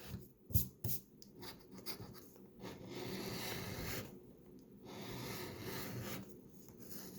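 Coin scratching the coating off a paper scratch-off lottery ticket: short scraping strokes with two sharp ticks in the first second, then longer stretches of steady scraping in the middle.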